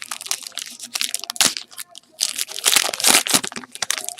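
A trading card pack wrapper being torn open and crinkled by hand, in a run of irregular crackling bursts, with the densest crinkling from about two to three and a half seconds in.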